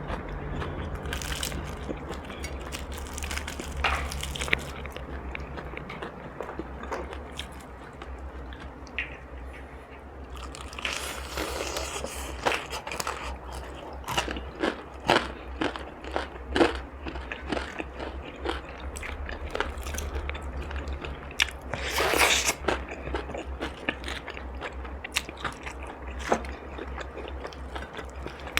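Close-miked eating of crisp food such as fried chicken or cucumber: bites and chewing with irregular crunches throughout. The loudest burst of crunching comes about 22 seconds in, over a steady low hum.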